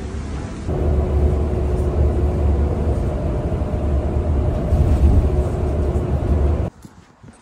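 Cabin noise inside a moving city bus: a steady low engine and road rumble with a faint steady hum. It comes in about a second in and cuts off suddenly near the end.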